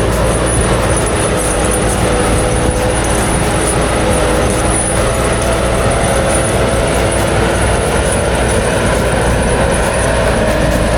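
HMS 805 log-processing machine running steadily at work: continuous heavy machinery noise with a constant engine hum, unbroken throughout.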